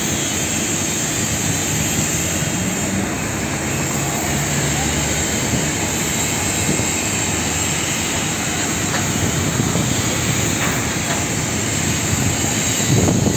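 Steady rumble and hiss of road traffic, unbroken and without distinct events.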